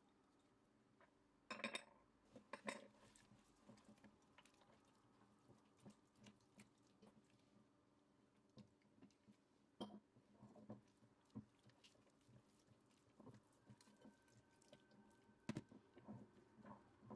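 A hand mixing flour into wet cookie batter in a glass bowl: scattered soft clicks and wet squelches, with a few louder taps against the glass about two seconds in, around ten seconds and near the end.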